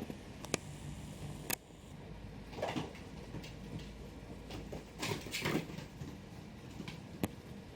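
Kittens playing: scattered light knocks and sharp clicks with short scuffling rustles.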